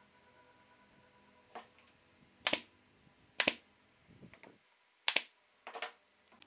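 Five sharp knocks, unevenly spaced about a second apart, several of them doubled, with a few softer taps between the third and fourth.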